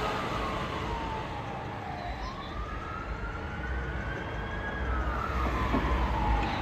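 Fire engine siren on a slow wail: the tone sweeps down, back up and down again, each sweep taking about two seconds, over a low engine and road rumble.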